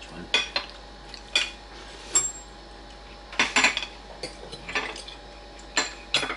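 Spoons and forks clinking and scraping against ceramic plates and bowls while people eat, in scattered irregular clinks, one with a brief high ring about two seconds in.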